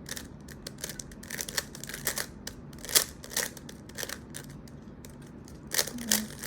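Plastic 3x3 Rubik's cube being turned fast by hand during a speedsolve: quick, irregular clicks and clacks of the layers snapping round.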